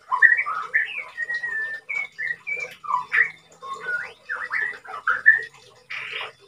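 White-rumped shama (murai batu) in moult, singing a fast, varied run of short whistled notes and pitch glides, with a harsh rasping note near the end.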